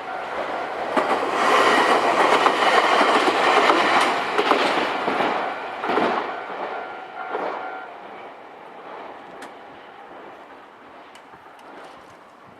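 A Nankai electric train passes over a level crossing. The noise of its wheels on the rails is loudest from about one to five seconds in, then fades away. Under it the crossing's electronic warning bell gives a steady ringing tone, which stops about eight seconds in.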